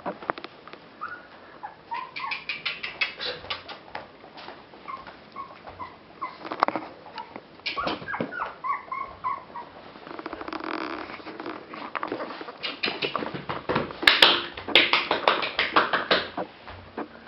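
Pomeranian puppy giving short, high whimpers and yips, over quick clicking and pattering of its claws on a wooden parquet floor as it scampers about. The clicks grow denser and louder near the end.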